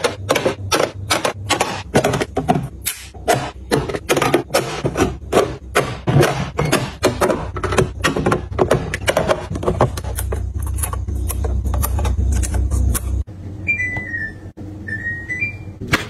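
Rapid clicks and knocks of glass jars and plastic storage boxes being set down and slid onto refrigerator shelves. A low hum underneath stops about thirteen seconds in, and a few faint high chirps follow near the end.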